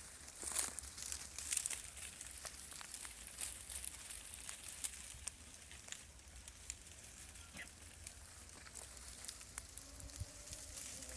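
Irregular crackling and rustling, a stream of small dry clicks over a hiss. A faint, low, drawn-out call comes in near the end.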